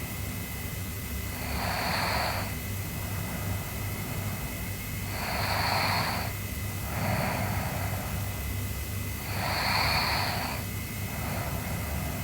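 Sleeping girl snoring softly: slow, breathy breaths about every four seconds, a few of them followed by a weaker one, over a steady low hum.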